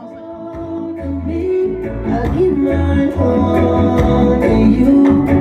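A song with singing. A heavy bass line comes in about a second in and drum hits join, growing louder.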